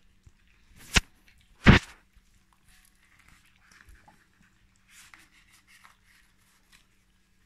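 Puppies eating from metal bowls on a puppy pad: faint clicks, rustles and chewing. Two loud, sharp knocks come about a second in and just under two seconds in.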